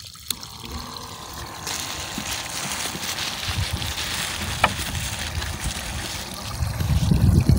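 Small battery-powered aerator (air pump) on a fish holding container switched on with a click, then a steady bubbling hiss of air in the water from about two seconds in.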